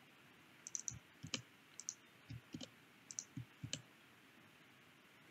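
Faint computer keyboard keys clicking as a line of code is typed: a dozen or so light taps in small clusters that stop a little under four seconds in.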